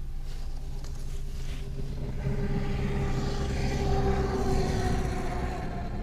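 A motor vehicle's engine running steadily. It grows louder about two seconds in and eases off again near the end.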